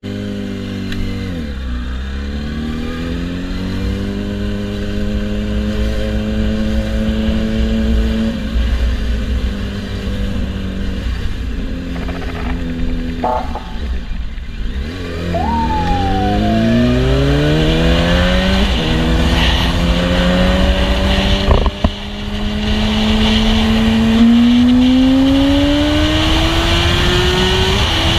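Yamaha sport motorcycle engine accelerating through the gears: its pitch climbs and drops back at each shift, several times over, easing off briefly in the middle before pulling hard again. A low wind rumble runs underneath.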